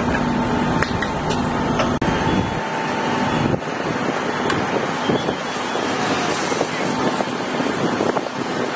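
Fire apparatus running on the fireground: a steady rushing engine-and-pump noise mixed with water spraying from the hose lines. A low rumble and a faint steady whine drop away about three and a half seconds in.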